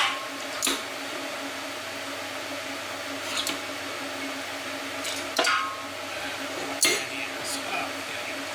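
Several sharp metallic clinks and knocks of steel parts and tools being handled, the loudest two about five and a half and seven seconds in, over a steady machine hum.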